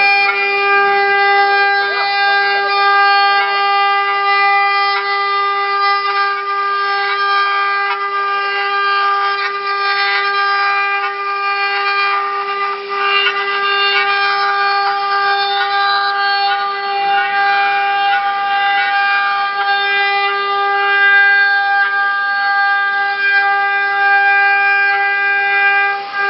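Wood CNC router spindle running at a constant high speed, a steady whine that holds one pitch, with uneven rough noise from the cutter engraving a long wooden column.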